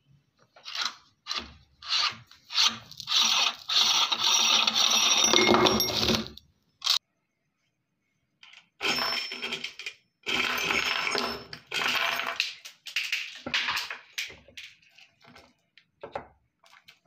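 Glass marbles clattering and clinking against each other and the metal parts of a hand-cranked meat grinder as the grinder is opened and the marbles spill out. The sound comes in bursts of rattling: a dense clatter in the first half with one sharp knock, a short pause, then more clatter that thins out into scattered clicks.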